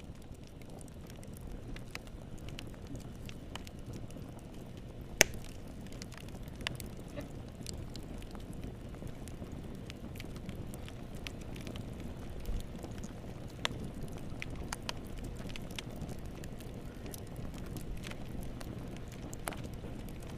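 Wood fire burning in a fireplace: a steady low rumble and hiss of the flames with scattered sharp crackles and pops, one much louder pop about five seconds in.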